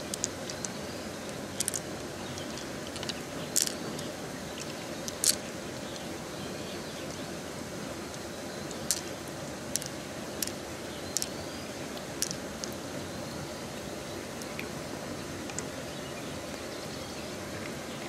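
Pearls clicking against one another as they are dropped one by one into a cupped palm, a dozen or so sharp clicks spread irregularly, the loudest about five seconds in. Behind them is the steady rush of running water.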